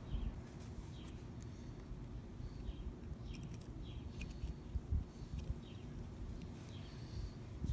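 Soft clicks and light handling noises of small lawn mower carburetor parts being fitted together by hand, the needle and seat and float going in, with one duller knock about five seconds in, over a low rumbling background and faint high chirps.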